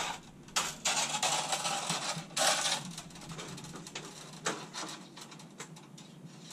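Steel electrician's fish tape rattling and rasping as it is run off its plastic reel, in several loud bursts over the first three seconds, followed by fainter scattered clicks and rattles.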